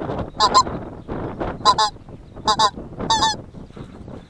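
Greater white-fronted geese calling in flight: four bursts of high, paired yelping notes, over a steady background hiss.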